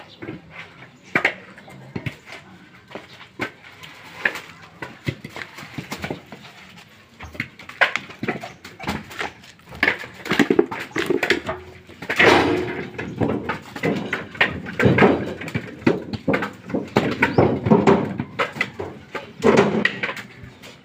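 Husked coconuts being dropped and tossed by hand into woven bamboo baskets: a run of irregular knocks and thuds, busier in the second half.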